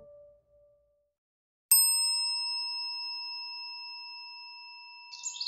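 A single bright chime struck once, its clear ringing tone fading slowly over several seconds. Bird chirps begin near the end.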